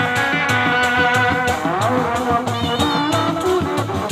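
Sundanese dog-dog frame drums beating a steady rhythm under a tarompet (Sundanese shawm) playing a wavering melody, with rising glides about halfway through.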